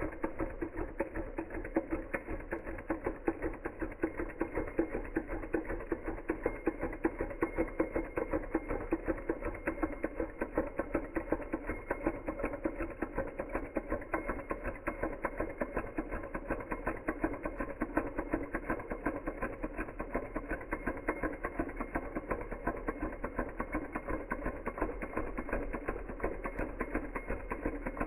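Small Hog Motor Stirling engine running steadily, its piston, linkage and flywheel giving a rapid, even mechanical ticking.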